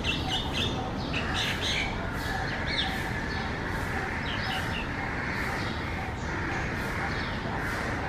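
Common myna calling: a quick run of short, harsh squawks and chirps over the first three seconds or so, then scattered single notes.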